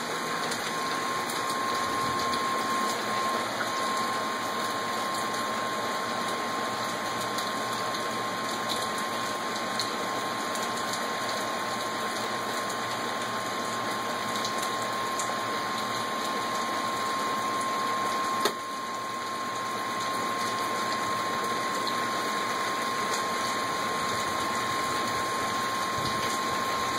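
Steady rain falling, an even hiss with no let-up. A thin steady tone sits over it, and there is a single click about two-thirds of the way through.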